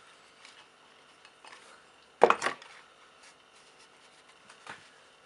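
A steel hammer set down on a wooden workbench: a sharp knock with a short rattle about two seconds in, then a lighter knock near the end, with faint handling of copper wire in between.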